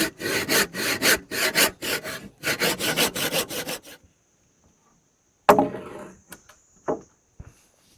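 Hand saw cutting through wood in quick, even back-and-forth strokes, about three a second, stopping about halfway through. A sharp knock follows, then a lighter one near the end.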